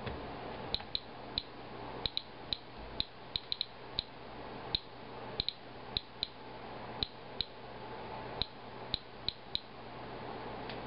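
Inspector Alert Geiger counter chirping once for each detected count, in short high clicks at random intervals, about two a second, over a faint steady hum. It is counting radiation from a paper towel wiped off a car after rain, a rate the owner takes for elevated, rain-borne radioactivity.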